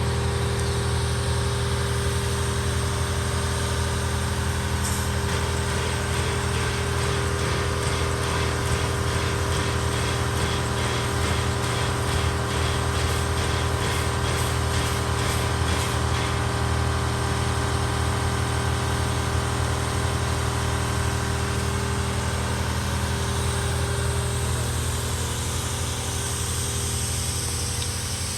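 Diesel locomotive engine idling, a steady low drone that holds even throughout.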